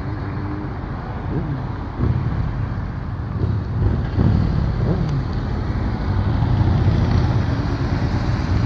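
Motor vehicle engine running close by over road and traffic noise, its pitch rising and falling a few times in the first half.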